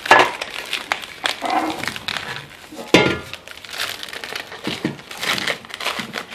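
Packaging crinkling and rustling in irregular bursts as it is worked and pulled off a boxed car part.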